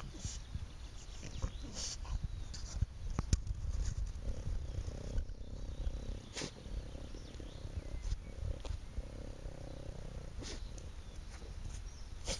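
French bulldog snuffling and snorting through its nose, its snout pushed into the soil as it digs at a vole hole, with sharp sniffs now and then.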